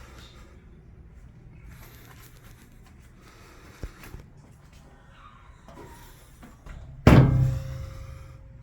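A hard slam about seven seconds in, ringing briefly as it fades, after a single light click, over a low steady hum.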